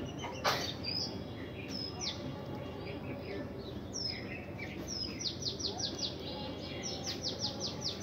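Budgerigars chirping: a few single high, downward-sliding chirps, then quick runs of short chirps, about six a second, starting about five seconds in and again near the end. A single knock about half a second in.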